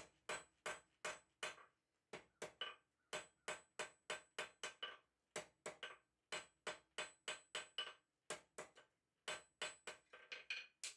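Blacksmith's hammer striking hot iron on an anvil in light, even blows, about three a second in short runs with brief pauses, each strike ringing briefly: tack-welding the lapped scarf joint of a forge weld at welding heat.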